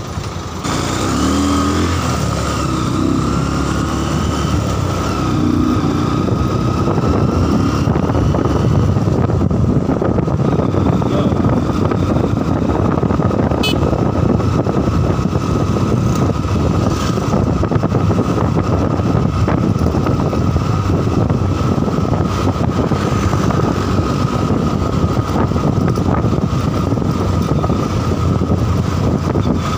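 Honda Verza 150's single-cylinder engine and road noise heard from the rider's seat as the motorcycle rides through town traffic. The sound steps up about a second in as it pulls away, then holds as a steady rush.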